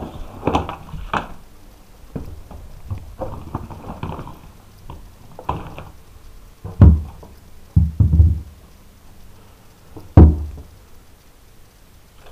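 A series of knocks and thuds: light clattering knocks through the first half, then heavy thuds about seven seconds in, two more close together around eight seconds, and a last heavy one near ten seconds, the loudest of all.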